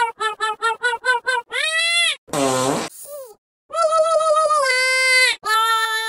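A string of comedy sound-effect clips: a rapid run of short high-pitched cries, about five a second, and a held cry, then a short fart noise about two and a half seconds in, followed by long wavering wails like a baby crying.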